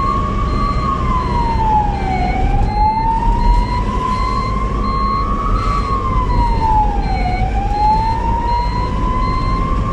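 Ambulance siren wailing: its pitch climbs slowly and drops more quickly, repeating about every five seconds, over a steady low rumble.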